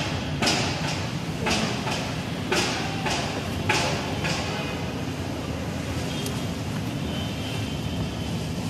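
Street traffic: the steady low rumble of car engines idling in a stopped queue. Over it, in the first half, comes a run of short brushing or rustling noises close to the microphone, about one or two a second, which then stop.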